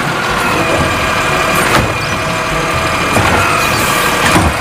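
Automated side-loader garbage truck running, its engine and hydraulic arm working as the arm lowers an emptied wheeled cart back to the curb. Two sharp knocks, about a second and a half in and near the end.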